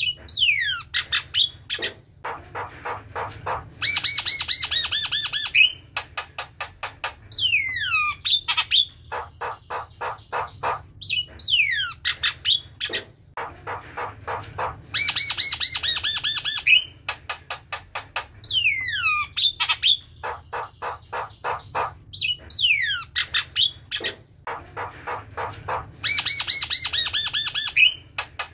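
Javan myna (jalak kebo) chattering song: runs of fast harsh clicking notes, steeply falling whistles and a quick series of ringing notes. The whole phrase comes round about every eleven seconds.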